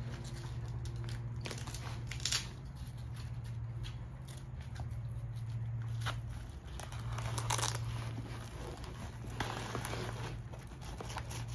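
Nylon fabric and straps of a Byrna Shield backpack rustling as they are folded and handled, with a couple of ripping sounds of Velcro pulled apart, about two seconds in and again past the halfway mark. A steady low hum runs underneath.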